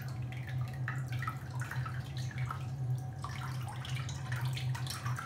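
Soup stock dripping and trickling from a stainless steel colander of cooked vegetables into a plastic bowl, in small irregular drips. A steady low hum runs underneath.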